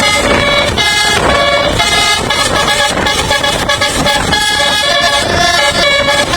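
A bus's telolet musical air horn playing a tune of quickly changing notes.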